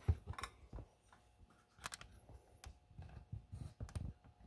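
Scattered light clicks, knocks and low thumps of handling as the camera is moved in close over the saw and the saw set tool.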